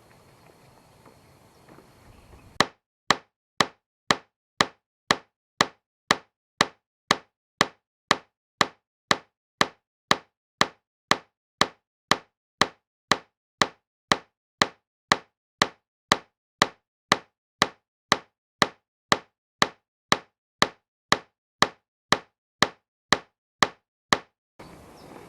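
Sharp knocks, evenly spaced at about two a second with dead silence between them: a rhythmic sound effect laid over the sped-up work in place of the natural sound. The faint outdoor background gives way to the knocks about two and a half seconds in and returns just before the end.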